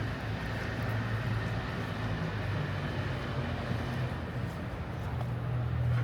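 City street ambience: a steady low hum like a motor vehicle engine running nearby, under a general wash of urban noise.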